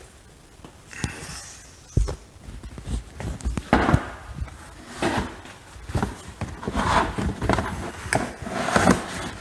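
Irregular knocks, thumps and rustling as the trunk floor carpet is handled and laid back into a car's trunk, mixed with camera handling noise. There is one sharp knock about two seconds in.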